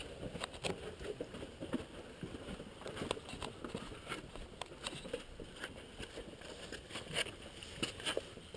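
Hikers' footsteps: an uneven run of steps and scuffs on the trail, a few a second.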